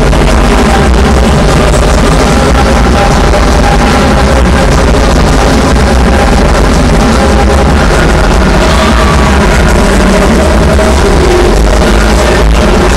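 Loud, dense music playing steadily, with no commentary over it.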